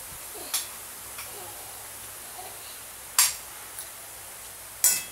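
Metal fork clinking against a plate while scooping marang fruit flesh: three sharp clinks, about half a second in, a little past three seconds and near the end, with a few fainter ticks between.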